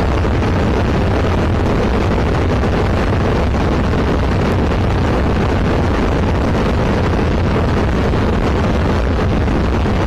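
Steady drone of a Zenith CH701 light aircraft's engine and propeller in cruise flight, heard from inside the cockpit, with wind noise over it.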